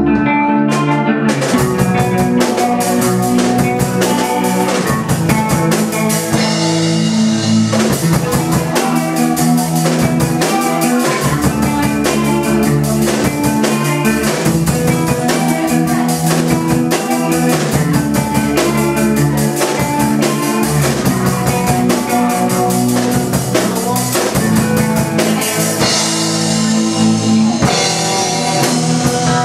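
Rock music with a drum kit and guitar, instrumental with no singing. The drums come in about a second in.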